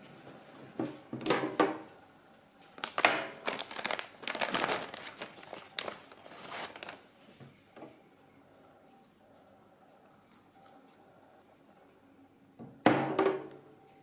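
Household objects being handled: a run of knocks, clacks and crinkling rustles, then a quiet spell and one louder knock near the end.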